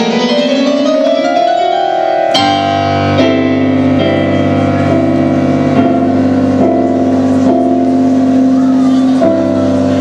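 Electronic stage keyboard played with a piano sound: rolling runs that climb in pitch, then, about two and a half seconds in, chords struck in a steady pulse over a held low bass note.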